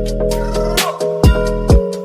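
Background music with a steady drum beat over held chords.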